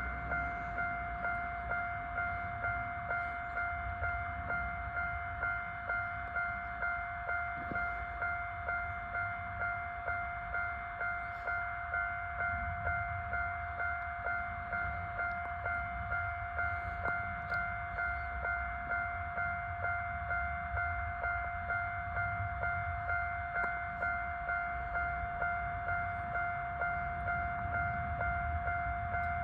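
Japanese level-crossing electronic warning bell ringing over and over, just under two strokes a second, with a low rumble underneath.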